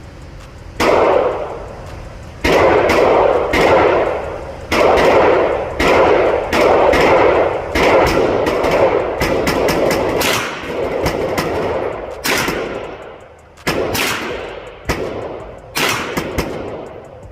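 Gunfire at a shooting range: about twenty sharp shots at irregular intervals, sometimes several in quick succession, each followed by a reverberating tail.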